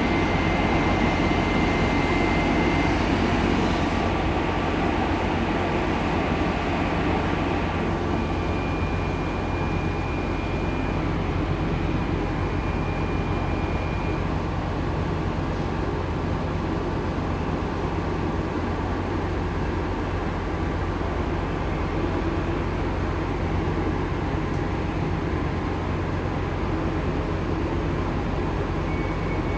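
Diesel railcar's engine idling while the train stands at the platform, a steady low hum heard from inside the car.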